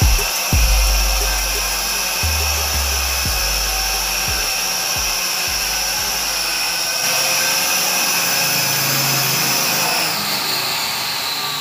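SG900 toy quadcopter's small motors and propellers whining steadily in flight, the pitch dropping slightly near the end as it sets down. The drone is flying again after repair of a burnt MOSFET on its receiver. Background music with a bass beat plays underneath in the first half.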